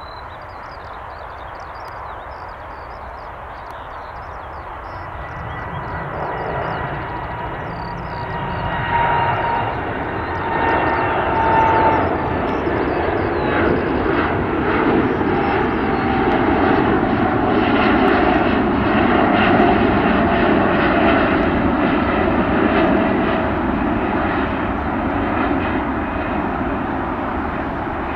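Boeing 787's Rolls-Royce Trent 1000 jet engines at climb power after takeoff, growing louder as the airliner climbs past. It is a broad rumble with a whine in it that slides slowly down in pitch, at its loudest in the second half.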